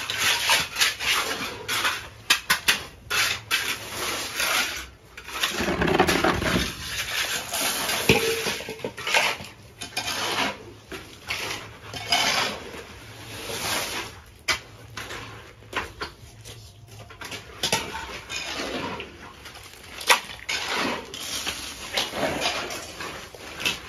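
Hand-mixing and laying of concrete: shovels and trowels scraping through wet concrete and gravel, with metal mortar pans clanking as concrete is tipped out and spread. The strokes are irregular and come throughout.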